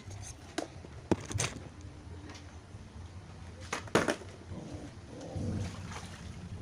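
Handling noise from a plastic laundry basket and clothes: scattered light knocks and clatter, the loudest about four seconds in, with some soft rustling, over a low steady hum.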